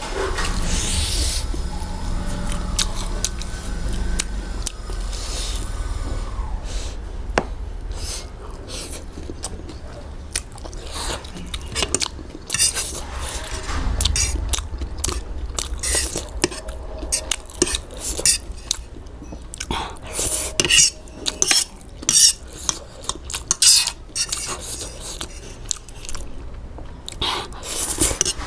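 Close-miked eating: cutlery clinking and scraping against a plate, with chewing. In the second half the clinks come as a dense run of short, sharp clicks.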